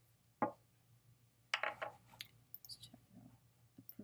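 Computer mouse clicks and keyboard keystrokes while numbers are typed into a field: a sharp click about half a second in, a quick cluster of clicks around the middle, then a few fainter ticks, over a low steady hum.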